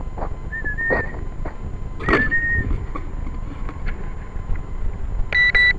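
Rumbling wind and handling knocks, with two short whistle-like notes about half a second and two seconds in, each dipping slightly and then holding. Near the end comes a short steady electronic beep.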